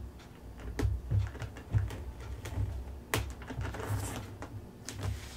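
A shipping package being handled and opened by hand: scattered sharp clicks and taps, the loudest about three seconds in, with low bumps and a brief rustle of packing material.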